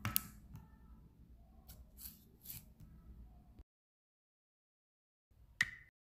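Several short taps and scrapes of fingers handling a touchscreen phone on a wooden table. The sound cuts off abruptly after about three and a half seconds, and one more sharp tap comes near the end.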